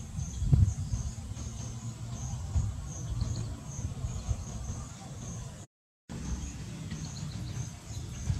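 Insects chirping in a steady run of short, high, evenly repeated pulses, over a low, gusty rumble of wind on the microphone. The sound drops out completely for a moment about six seconds in.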